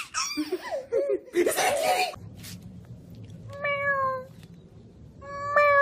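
A baby laughing at first. Then a kitten mews twice: two long calls on a steady pitch that drops slightly at the end, the second one longer.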